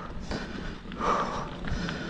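Mountain bike rolling along a dirt trail, its tyres and frame giving off scattered clicks and rattles, with the rider breathing hard: a loud exhale about a second in.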